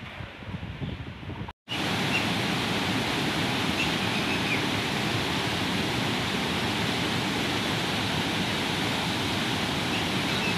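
Floodwater released through a dam's lifted gates, rushing and churning down the spillway channel in a loud, steady rush. It starts after a brief dropout about one and a half seconds in; before that, a quieter, uneven wind noise on the microphone.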